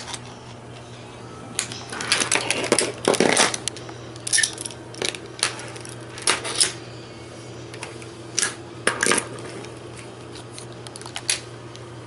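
Plastic magnetic building tiles clicking and clacking as they are snapped together and set down on a tabletop: a busy run of clatter about two to three and a half seconds in, then single and paired clicks scattered through the rest.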